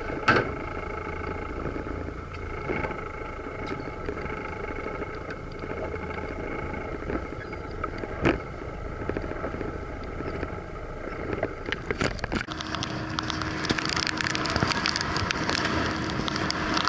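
Evinrude outboard motor idling steadily as the boat trolls slowly, with a few sharp knocks. About twelve seconds in the sound cuts to the boat running at speed: wind and spray noise over a steady engine tone.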